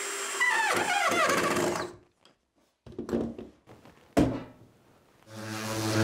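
DeWalt cordless drill whirring as it bores into a pine board, its pitch rising and falling with the trigger, then stopping about two seconds in. A few light knocks follow, then a sharp thunk as the drill is set down on a wooden table. Near the end a second cordless power tool starts and runs with a steady hum.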